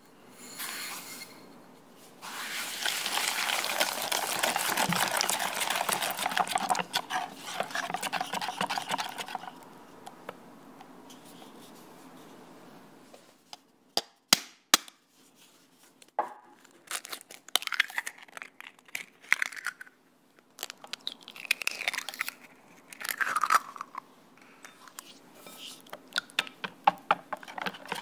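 Cream cheese being mixed in a glass bowl, a dense gritty scraping for several seconds. About halfway through come a few sharp cracks of eggs being broken, then a wire whisk beating egg into the batter, its wires scraping and clicking against the glass bowl.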